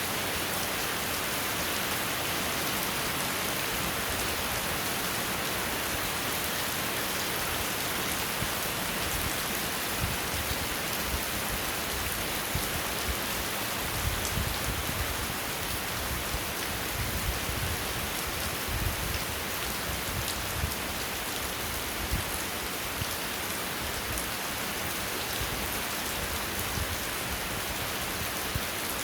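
Steady rain falling, a dense even hiss with scattered louder drops ticking on a surface.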